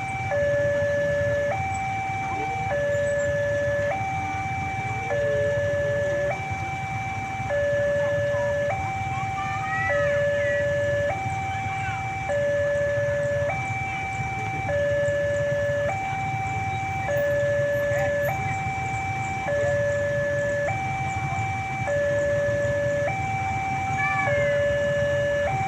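Railway level-crossing warning siren sounding a steady two-tone hi-lo alarm: a lower and a higher tone alternate about every 1.2 seconds, one full cycle about every two and a half seconds. A low steady rumble runs underneath.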